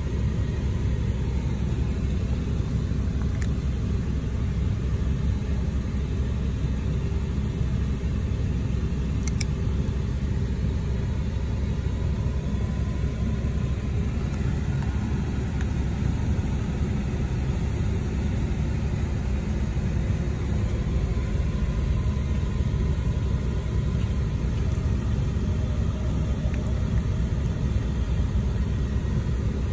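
Steady low rumble inside a car cabin, with a few faint brief clicks.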